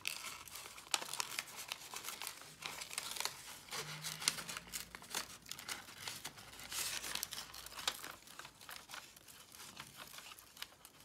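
Gift-wrapping paper crinkling and rustling as it is handled and cut with scissors, with many small irregular sharp clicks.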